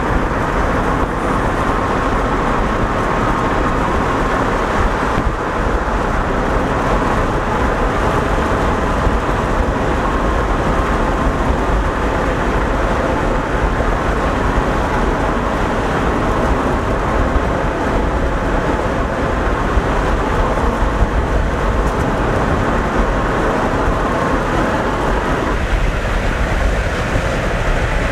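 Steady road and wind noise inside a car driving at speed, mixed with the rumble of a long freight train rolling alongside on its rails.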